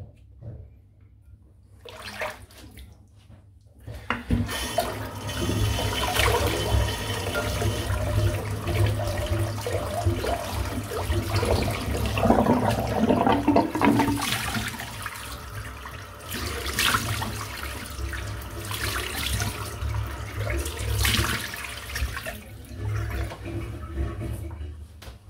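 Bathroom tap running into a sink, the water splashing, starting about four seconds in and stopping just before the end.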